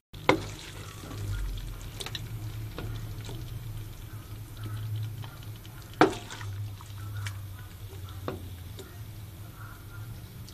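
Spatula stirring saucy chayote and ground pork in a pan, with a few sharp clacks against the pan; the loudest comes about six seconds in. A steady low hum runs underneath.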